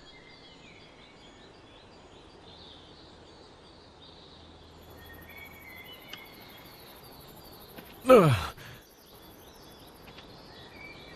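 Quiet forest ambience: birds chirping over and over and a faint high insect buzz in the middle stretch. About eight seconds in, a person lets out a loud, short, falling sigh.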